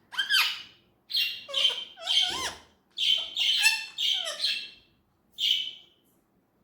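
Indian ringneck parakeet vocalising in a string of short, gliding, squawky calls, several a second, with a last call about five and a half seconds in.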